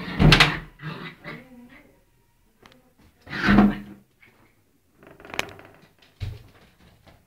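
Empty plastic jug knocked, batted and scraped across the floor by a Siberian husky puppy at play, giving irregular hollow plastic knocks and clatters, the loudest just after the start and again about halfway through.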